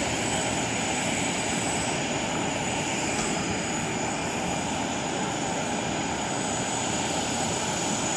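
Airbus A380 being moved by a towbarless tow tractor: a steady high turbine whine over an even rumble that does not change.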